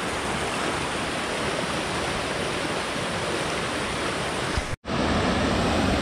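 Steady rush of a fast forest creek tumbling over rocks. It cuts out for an instant just before five seconds in, then resumes slightly louder.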